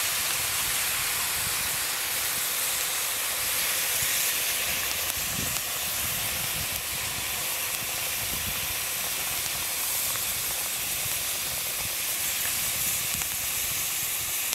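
Steady hissing and sizzling as beef stock is poured from a carton into a hot Dutch oven of seared meat and vegetables.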